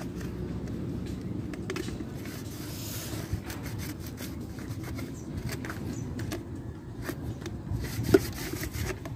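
Chicken water containers being scrubbed by hand with a mesh scrubber to clear algae from inside: steady rubbing and scraping with small scattered knocks.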